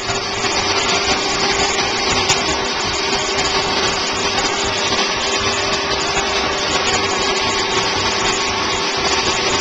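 Water spraying from a pistol-grip hose nozzle onto a dog's wet coat in a steel grooming tub: a loud, steady hiss with a steady hum underneath.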